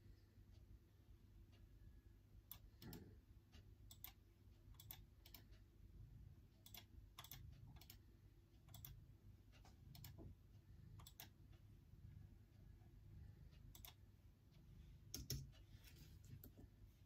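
Faint, irregular keystrokes on a computer keyboard, a few clicks a second with pauses between, over a low steady room hum.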